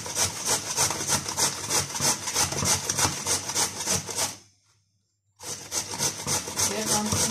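A carrot being grated on a stainless-steel box grater: rapid, even rasping strokes. The sound cuts out to silence for about a second just past the middle, then the strokes start again.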